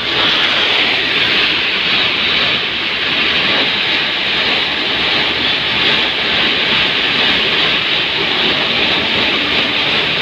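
High-pressure water jet washing out the outlet of a concrete batching plant's mixer hopper. The spray and the plant machinery make a steady, loud hiss that does not change.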